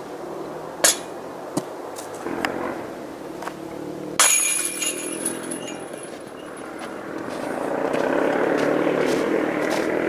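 A disc golf disc strikes the chains of a metal basket about four seconds in: a sudden metallic jangle that rings on for a second or two. A steady rushing noise runs underneath and swells near the end.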